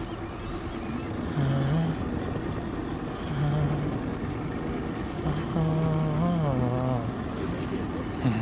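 A motorboat engine running over a steady rumble of background noise. Its low hum steps up and down in pitch several times and wavers near the end.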